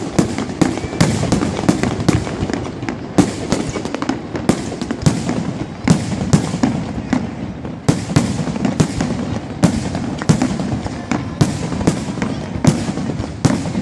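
Fireworks display bursting without pause: sharp cracks, several a second at irregular intervals, over a continuous low rumble of overlapping booms.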